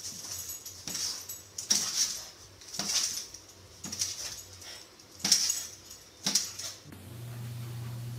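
A dog scratching at a wooden kitchen cabinet door with its claws, in short scratchy strokes about once a second. About seven seconds in, the scratching stops and a steady low hum begins.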